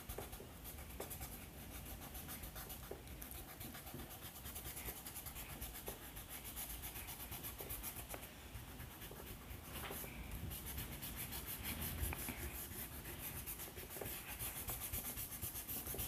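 Faint rubber eraser rubbing over paper, rubbing out pencil lines.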